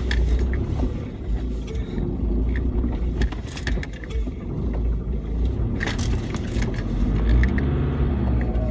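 Off-road vehicle's engine running under load, heard from inside the cab, as it pulls a mud-stuck SUV on a tow strap, with scattered knocks and rattles.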